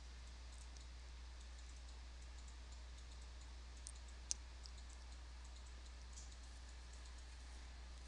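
Quiet room tone with a steady low hum and a few faint clicks; one sharper click about four seconds in.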